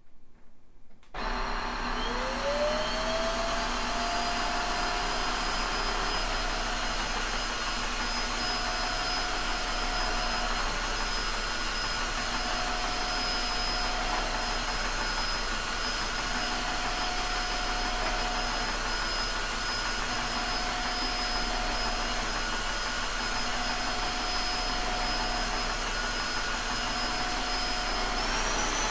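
Tineco iFloor 3 cordless wet-dry floor washer switched on about a second in and running as a dry vacuum: its suction motor spins up with a rising whine, then runs steadily, a high whine over a rush of air. Near the end the whine jumps higher in pitch and the machine gets a little louder.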